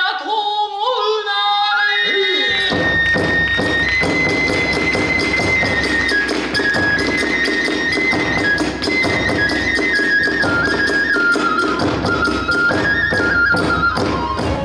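A chanted kagura declamation ends about two and a half seconds in. Then the kagura hayashi ensemble strikes up: a shrill bamboo flute plays a high stepping melody over fast, steady strokes of the large drum and hand cymbals.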